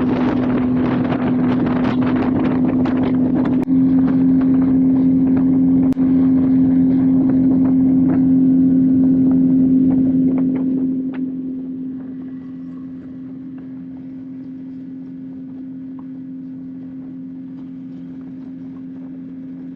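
Small boat's motor running at speed at a steady pitch, with loud rushing wind and water noise and short slaps that ease off about eleven seconds in while the motor carries on.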